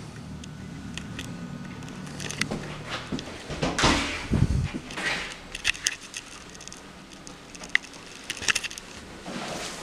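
Clicks, knocks and rubbing of a door being handled and pushed open close to the microphone, with a low thump about four seconds in.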